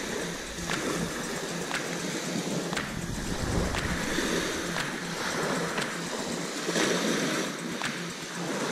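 Small waves breaking and washing up a pebble beach, in surges, with wind on the microphone. A faint tick comes about once a second.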